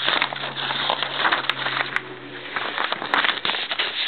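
Packaging being torn open and handled: cardboard and paper rustling and crinkling with many small crackles and clicks.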